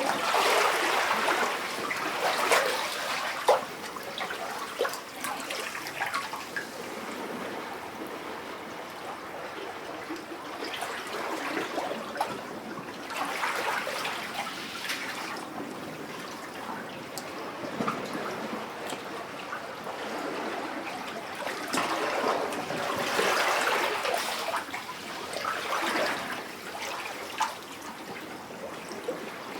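Small waves lapping and sloshing in a rock cavity, water gurgling and splashing against the rock. Each surge brings a swell in the sound, with small splashes and drips between the surges.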